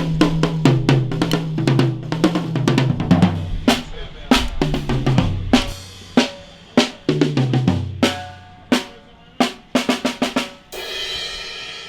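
Drum kit played hard in loud, irregular snare and kick hits over a deep, stepping bass line, ending on a longer ringing sound.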